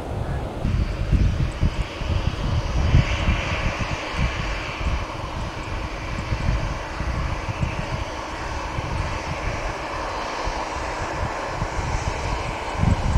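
Airliner engine noise, a steady rushing roar heard from beside the airfield, with wind gusting on the microphone underneath.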